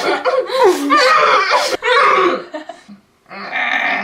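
Girl's voice making a wordless imitation sound effect, gliding up and down in pitch, mixed with laughter; a breathier, hissing vocal sound follows near the end.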